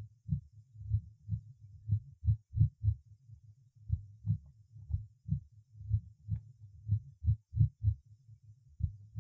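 Heart sounds recorded at auscultation: regular paired lub-dub beats. About two to three seconds in, and again near the end, a beat comes early and is followed by a longer pause. This is the pattern of extrasystoles with a compensatory pause.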